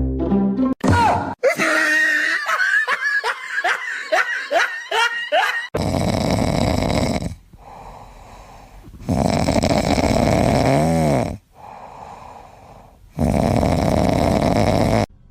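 A run of short, rising high-pitched calls for the first few seconds, then loud rasping breaths that come slowly and evenly, like wheezing or snoring.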